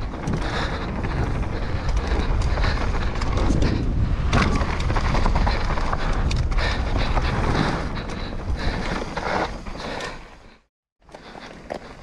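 Downhill mountain bike descending a dry dirt trail at speed: wind rumbling over the camera microphone, tyres crunching over dirt and stones, and the bike rattling with frequent knocks over bumps. The sound cuts out briefly near the end.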